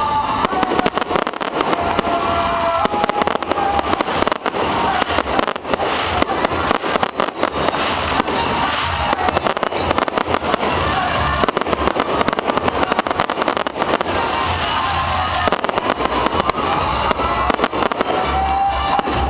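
Fireworks salute going off: a dense, unbroken run of bangs and crackles.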